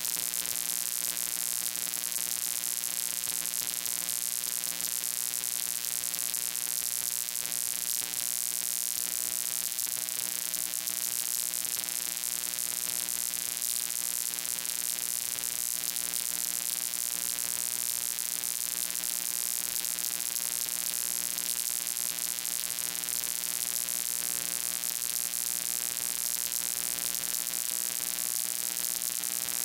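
Steady electrical hum with many even overtones under loud, constant hiss, unchanging throughout.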